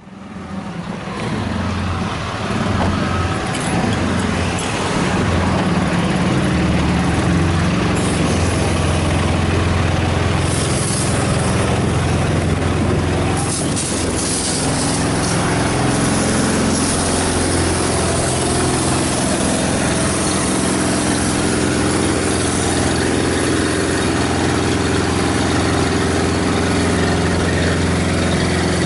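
Fire tanker truck's engine running steadily at idle, with the hiss of a hose spraying water onto smouldering trash. The sound fades in over the first couple of seconds.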